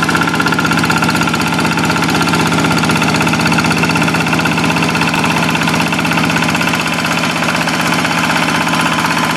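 Single-cylinder Kubota diesel engine of a hand tractor running steadily, with a fast, even chugging.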